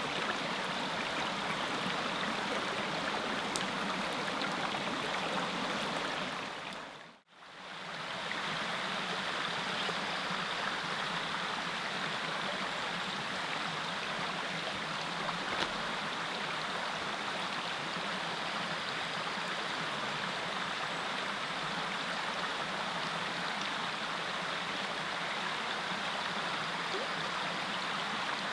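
Small mountain creek running steadily over rocks, a continuous rushing of water. The sound dips out briefly about seven seconds in and returns.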